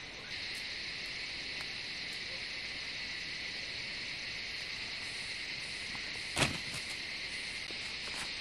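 Steady high-pitched chorus of insects such as crickets or cicadas, with one sharp knock about six seconds in.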